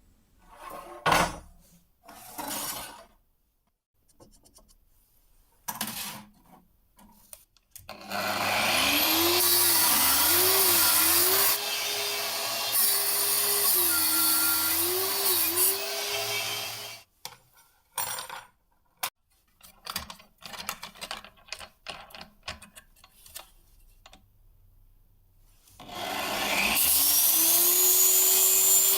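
A handheld electric power tool spins up and runs for about nine seconds, its pitch dipping and recovering several times as it is loaded against the work. Scattered knocks and short scraping strokes follow. Near the end the tool spins up again, its pitch rising.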